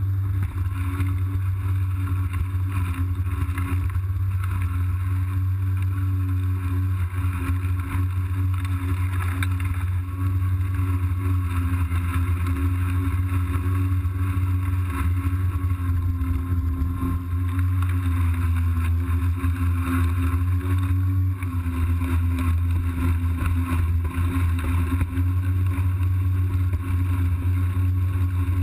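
Kobalt 40V Max cordless electric lawn mower running, a steady motor hum over a low rumble, muffled by the GoPro's waterproof case.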